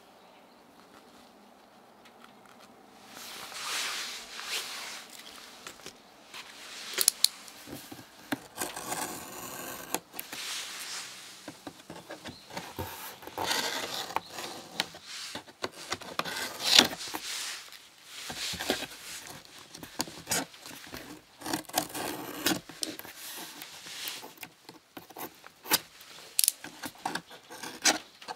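Packing tape on a cardboard shipping box being slit with a small blade: irregular scraping and rasping with sharp clicks and taps from the box being handled, starting about three seconds in.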